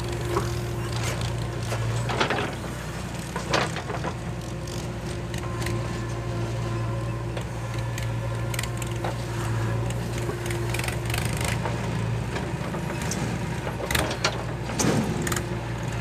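JCB 3DX backhoe loader's diesel engine running steadily as the backhoe digs and loads soil. A few sharp knocks and clatters of soil clods and the bucket come about two and three and a half seconds in, and again near the end.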